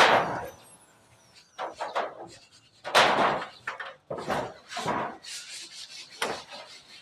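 A run of short, irregular scraping strokes on wood, typical of carpentry or roofing work. The loudest strokes come at the start and about three seconds in.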